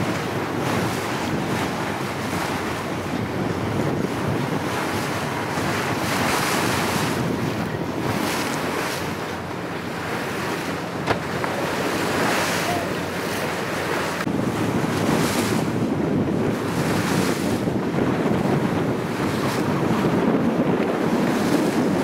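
Wind buffeting the microphone over the rush and splash of water along the hull of a boat under way in choppy sea, swelling every second or two. A single sharp click about eleven seconds in.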